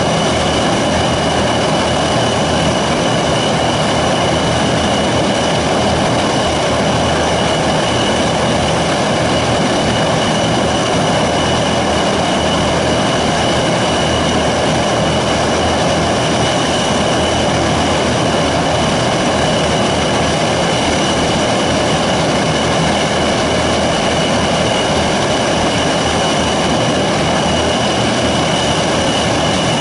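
Antonov An-22 Antei's Kuznetsov NK-12MA turboprops running on the ground during engine start, their contra-rotating propellers turning. It is a loud, steady roar with a high, even whine over it.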